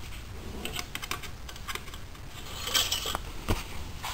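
Light, irregular clicks and short rustles of hands handling a rag and the dipstick over the engine bay, with a brief cluster of clicks about three seconds in.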